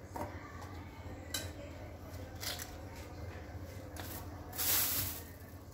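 Kitchen handling of raw cauliflower on a plastic cutting board: a few soft clicks and rustles as florets are handled, with one sharper click a little over a second in. About four and a half seconds in comes a louder, brief rustling hiss of well under a second.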